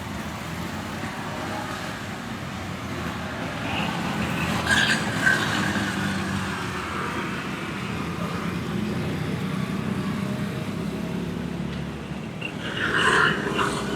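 Steady roadside traffic noise from passing vehicles, swelling louder twice: about five seconds in and near the end.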